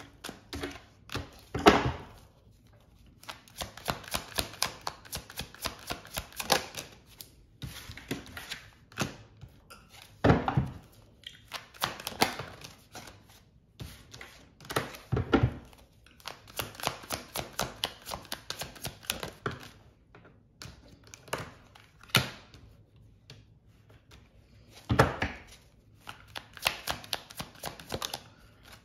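Tarot cards being shuffled by hand: several runs of rapid card clicks, a second or more each, broken by a few louder single thumps.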